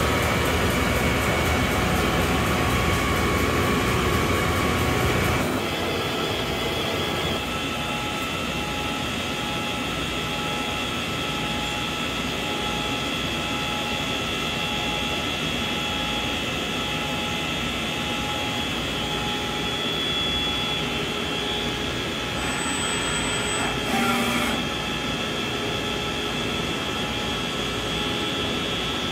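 Walter Helitronic Power CNC tool grinder running: a steady machine hum with several constant whine tones from its spindle, pumps and fans. The hum is louder and deeper for the first five seconds or so, then settles lower, with a brief burst of noise near the end.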